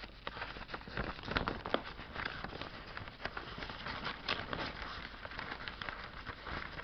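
Paper pages rustling, with irregular small clicks and knocks, as loose sheets are handled and put back into a binder.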